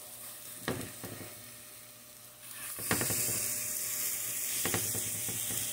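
Elk burger patties sizzling in a nonstick frying pan that holds hardly any grease, with a slotted spatula clicking against the pan. About two and a half seconds in, the sizzle jumps much louder as a patty is turned onto its raw side.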